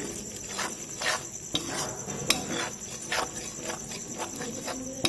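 A utensil stirring thick masala gravy in a kadai, with irregular clinks and scrapes against the pan and a steady high-pitched whine behind.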